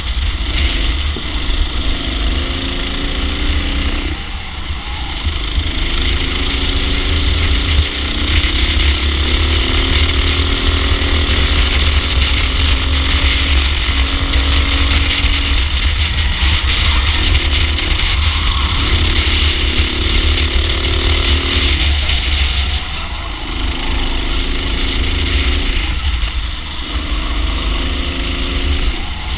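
Racing kart engine heard onboard at full race speed. Its pitch climbs again and again under acceleration and falls away in short dips where the throttle comes off for corners.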